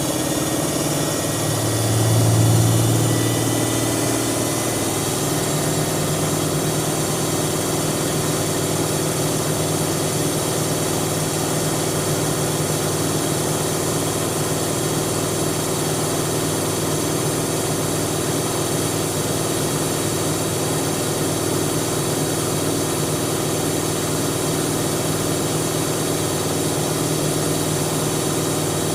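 Siemens Siwamat 7163 washing machine spinning: a steady motor and drum hum with a brief swell in the low hum about two seconds in, then an even drone.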